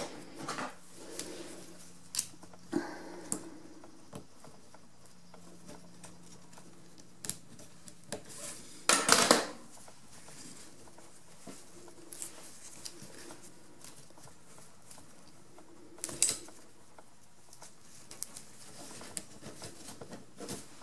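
Hands working cord through the slats of a bamboo matchstick roll-up shade: scattered light clicks and rustles of cord and bamboo sticks, with a louder rustling scrape about nine seconds in and another about sixteen seconds in.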